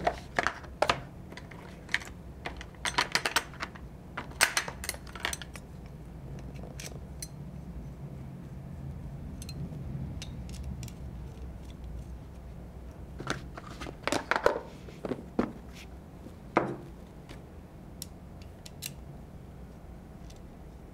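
Scattered light clicks and metallic clinks of small gun-cleaning tools being handled while a steel bore brush is readied, coming in two bunches, a few seconds in and again past the middle.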